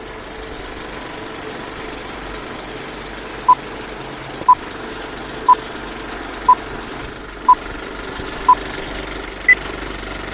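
Vintage film countdown leader effect: a steady old film projector rattle and hiss, with a short beep once a second starting about three seconds in, six at the same pitch and a seventh, higher beep near the end.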